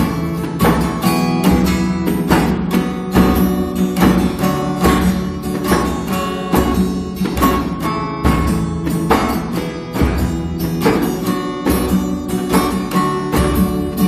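Background music: a strummed acoustic guitar playing in a steady, even rhythm.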